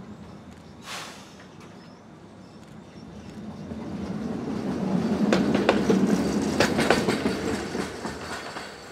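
A 1940s PCC streetcar passing close by. The rumble of its wheels and running gear swells to a peak about six seconds in, with a dense run of clicks from the wheels on the rails, then fades as it moves away. There is a single sharp click about a second in.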